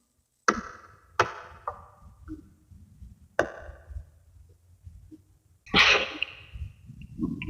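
Small magnetic balls snapping together: three separate sharp clicks, each with a short ringing tail, then a louder rattling run of clicks about six seconds in as several balls clack together at once.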